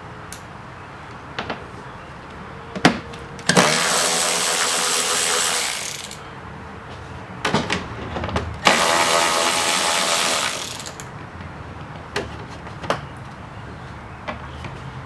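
A handheld power tool runs in two bursts of about two to three seconds each, with scattered sharp clicks and knocks of metal tools in between.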